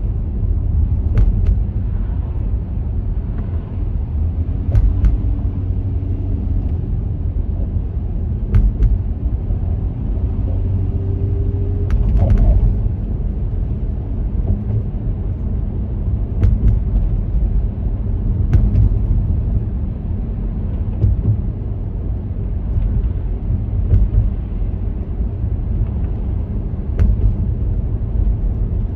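A car driving along city roads: a steady low road rumble, broken by sharp knocks every few seconds as the tyres strike bumps or road joints.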